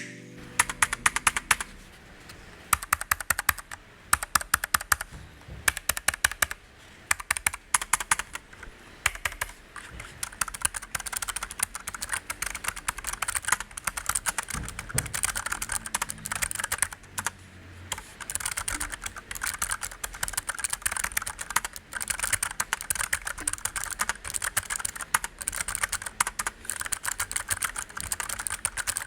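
Typing on a Keychron K3 low-profile mechanical keyboard with orange switches, which sound fairly clicky. Fast keystrokes come in short bursts with brief pauses for the first ten seconds or so, then run on as steady typing.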